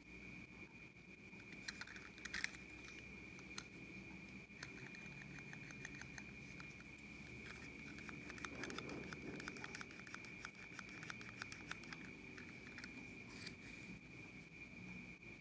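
Faint scattered clicks and light rubbing of a small plastic toy figure being turned and handled in the fingers, over a steady high-pitched whine in the background.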